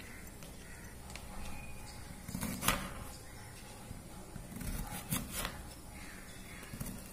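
Kitchen knife cutting bitter gourd into chunks, the blade knocking on a glass cutting board: a few scattered chops, the clearest about two and a half seconds in and a quick group of three a couple of seconds later.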